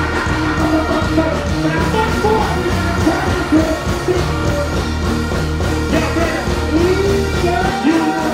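Live dancehall music over a stage sound system: a bass-heavy riddim with a deejay singing and chanting over it on a microphone. The bass drops out briefly near the end.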